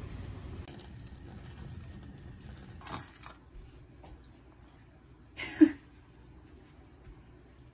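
A low, steady background rumble for about three seconds, then a short rustle, and about five and a half seconds in a sharp metallic clink with a brief ring: a metal spatula knocking against a bamboo cutting board as a veggie patty is slid onto bread.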